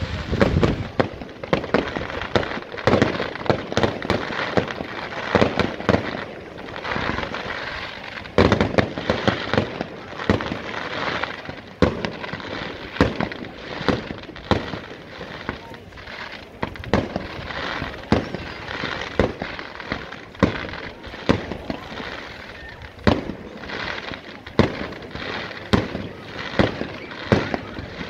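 Fireworks display: aerial shells bursting in a rapid, irregular series of sharp bangs, one after another with short gaps.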